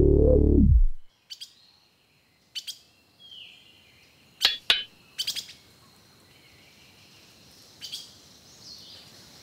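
A loud low humming tone stops abruptly about a second in. After it come a few short, scattered bird chirps over a faint, steady jungle background.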